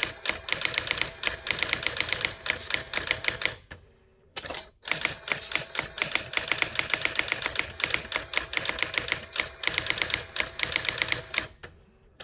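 Brother AX-20 electronic daisy-wheel typewriter printing characters sent over serial, a fast even run of sharp strikes, about eight to ten a second. It stops briefly twice, about four seconds in and near the end.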